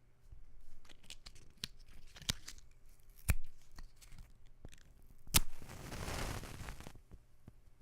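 Wooden matches being handled and scraped, with a series of small clicks and scratches, then a sharp strike against the box about five seconds in and a hiss of about a second and a half as the match head flares alight.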